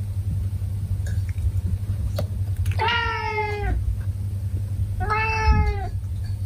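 Domestic cat meowing twice, two drawn-out calls a little under a second each, about two seconds apart, each dipping in pitch at the end: a cat calling to be fed while waiting for breakfast. A steady low hum lies underneath.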